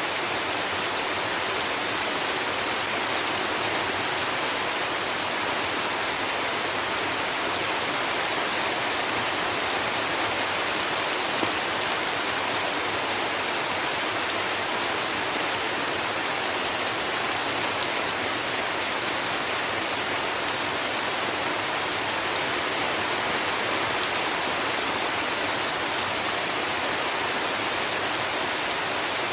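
Heavy rain falling in a steady, even hiss, with a few sharp drop ticks here and there.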